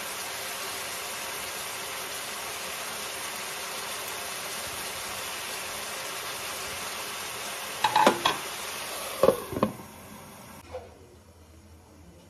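Vegetables sizzling in a hot frying pan, a steady hiss. A few sharp clinks of a utensil or bowl against the pan come about eight and nine and a half seconds in, and the sizzling gives way to a quiet room near the end.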